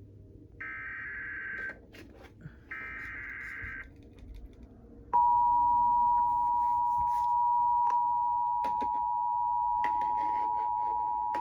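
Emergency Alert System SAME header: two electronic data bursts about a second long each, a second apart. About a second after the last one, the EAS attention signal starts, a loud steady two-tone beep (853 and 960 Hz) that announces an incoming alert.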